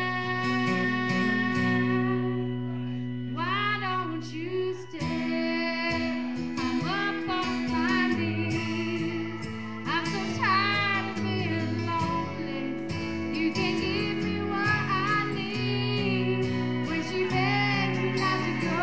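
Music: a woman singing over guitar accompaniment with steady held chords underneath. Her voice comes in about three and a half seconds in with wavering, bending notes.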